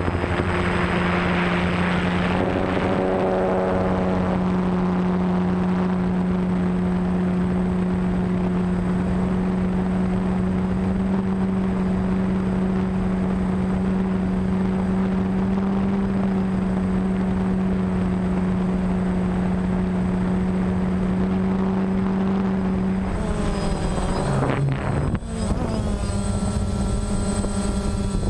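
DJI Phantom quadcopter's electric motors and propellers droning with a steady whine, heard from the drone's own onboard camera, with a hiss of wind over the microphone in the first couple of seconds. About five seconds before the end the pitch wavers and dips briefly, then settles again slightly higher.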